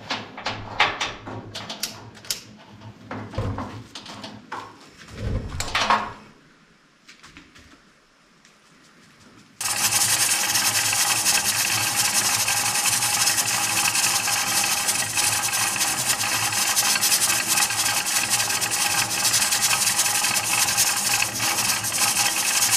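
Knocks and clanks of the pressure canner being handled, then a short lull, then, about ten seconds in, a sudden, steady, loud hiss of steam venting from the Mirro-Matic pressure canner's weighted regulator once it is up to pressure.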